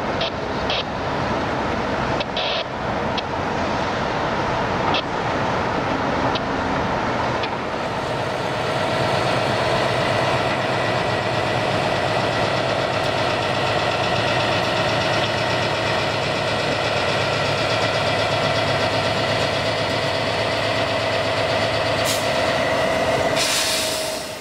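A few clicks and knocks from the motorized derail being worked, then a Union Pacific diesel-electric locomotive running steadily, its engine and fans giving a steady whine. A short hiss sounds twice near the end.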